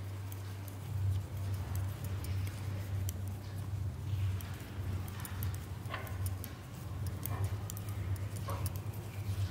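Light clicks of metal knitting needles working wool as a row is purled, over a low hum that wavers unevenly from about a second in.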